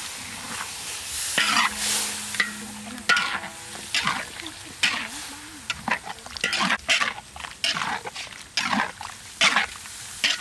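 Metal ladle stirring beef curry in a large metal wok, scraping the pan in quick, irregular strokes over a light sizzle of frying.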